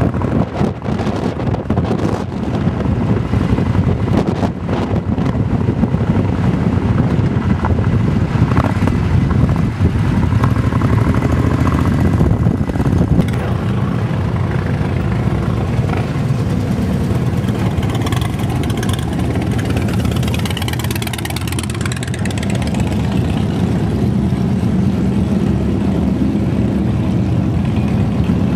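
Motorcycle engines rumbling steadily at low speed, with a few short knocks in the first few seconds.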